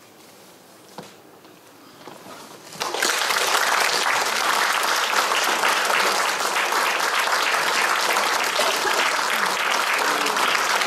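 A short hush, then an audience breaks into applause about three seconds in and keeps clapping steadily.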